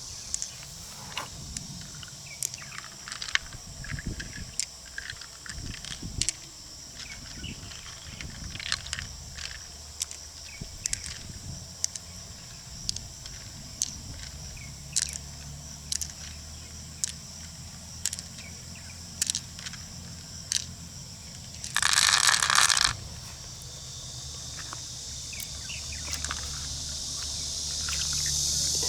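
Sharp clicks and scrapes of freshwater mussel shells being handled and pried open, a string of separate ticks, over a steady chirring of insects. About three-quarters of the way in there is a loud rush of noise lasting about a second.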